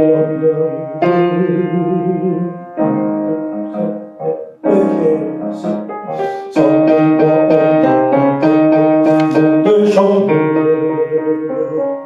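Piano playing an accompaniment passage of sustained chords, changing every second or so, with a short break about four seconds in.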